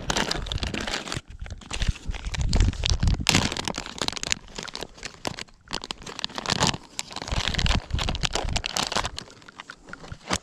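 Plastic packet crinkling and crackling on and off as it is pulled out of a backpack pocket and handled.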